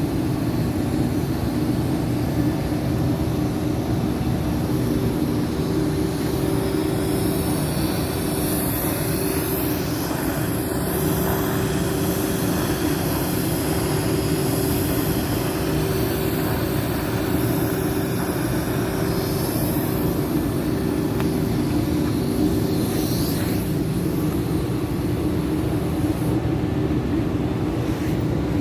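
A steady machine drone with a constant hum, unbroken throughout.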